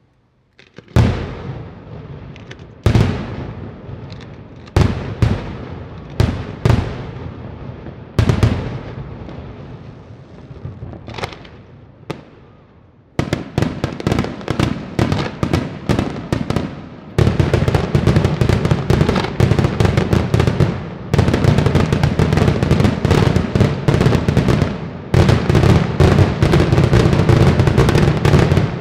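Daytime fireworks display: single loud shell bursts a second or two apart, each trailing off in an echo. About halfway through, a rapid barrage of many bangs takes over and grows denser and louder toward the end.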